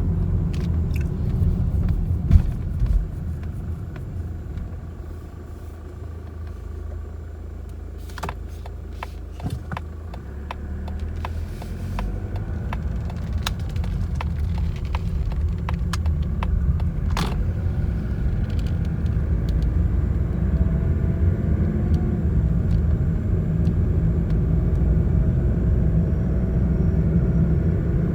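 Mazda CX-30 diesel driving, heard with a steady road and engine rumble that drops a few seconds in and then builds again. In the second half a faint steady whistle-like tone sits above the rumble, and there are a few scattered clicks. It is typical of the recorder-like whistle, like a long pipe vibrating, that the owner hears above 40 km/h. Replacing the turbocharger, the engine, the exhaust parts and the transmission has not cured it.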